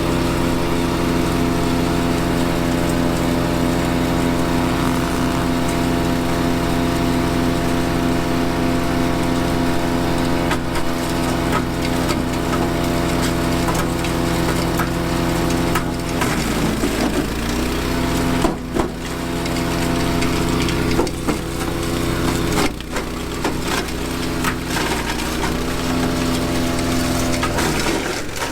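Honda-engined wood chipper running steadily as branches are fed in and shredded, with repeated cracking and splintering of wood. Several times in the second half the engine note dips briefly under the load of the branches, then recovers.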